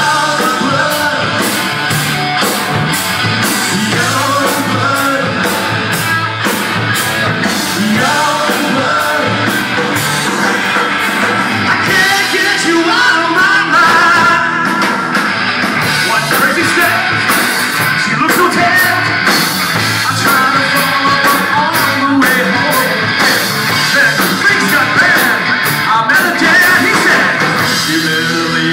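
Rock band playing live: electric guitars, bass and drum kit, with a male lead singer singing and shouting over them.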